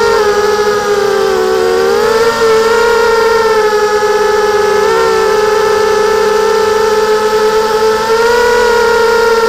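Electric motors and propellers of a 250-size FPV racing quadcopter whining steadily, heard through its onboard camera. The pitch sags about two seconds in and climbs back, with smaller dips and rises later as the throttle changes.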